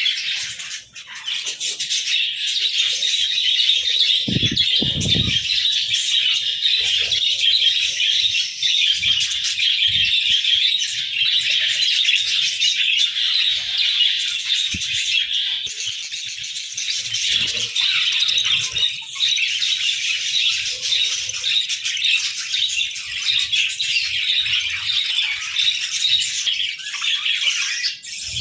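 A flock of budgerigars chirping and chattering together without a break, with a few soft low thuds about four to five seconds in.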